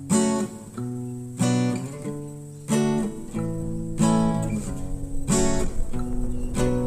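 Background music: acoustic guitar strumming chords, a new chord struck about every second and a half.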